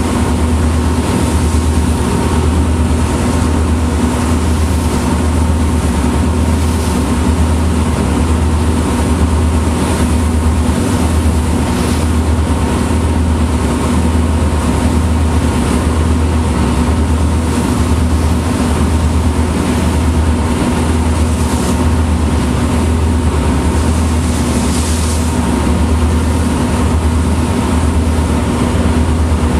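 Tugboat's diesel engine running steadily under way: a loud, continuous low drone with an even, slow throb a little faster than once a second.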